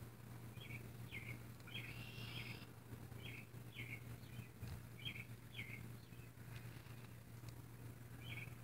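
Faint bird chirping: short high chirps, mostly in pairs about half a second apart, repeating every second or two, over a steady low hum.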